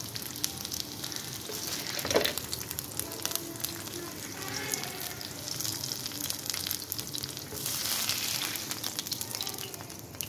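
Chicken breast sizzling in shallow oil in a nonstick frying pan, with a steady crackle of spitting oil. One sharp knock about two seconds in.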